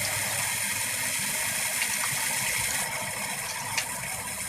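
Tap water running steadily into a sink while hands are washed under it; the rush eases slightly about three seconds in, with a small click near the end.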